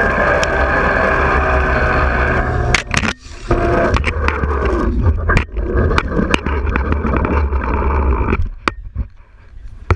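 Flying fox (zipline) trolley pulleys running along the steel cable, a loud steady whine and rush with a few sharp knocks and a brief dip about three seconds in. The run stops abruptly about eight and a half seconds in.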